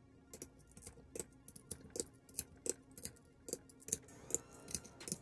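Ratchet of a torque wrench clicking in short sharp runs, about two to three clicks a second, as bolts are tightened on an engine crankcase's bedplate.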